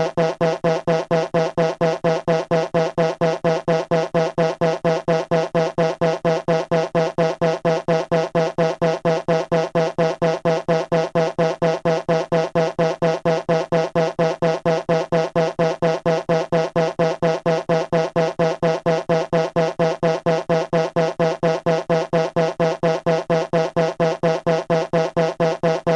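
Fart sound effect looped as a phone ringtone: a short, pitched, buzzy fart repeated evenly and rapidly, about three to four times a second.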